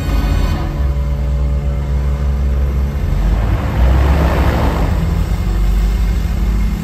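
Stunt jet ski and boat engines running on the lagoon: a steady low engine drone that swells to a louder rush about four seconds in.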